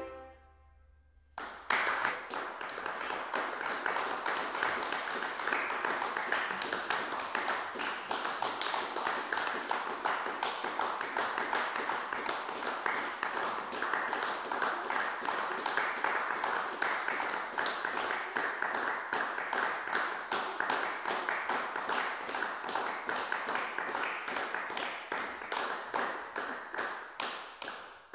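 About a second and a half of near silence, then an audience applauding steadily. The clapping thins and dies away near the end.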